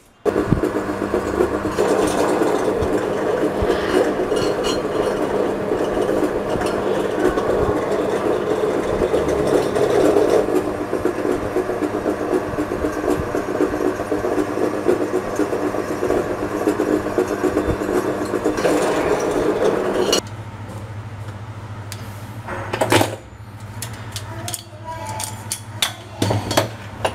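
Bench drill press running steadily while a small metal part is drilled. About 20 seconds in it cuts off, leaving a low steady hum with a few sharp metal clicks as the lathe's compound slide is worked by hand.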